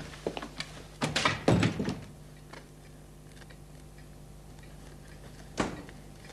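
Interior door being shut, with a short cluster of knocks and clatters about a second in. A single sharp thump comes near the end, over a faint steady hum.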